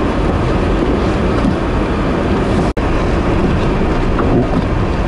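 Steady, loud rumbling noise of vehicles and wind in a snowstorm, with no distinct events; it drops out for an instant a little under three seconds in, where the footage cuts.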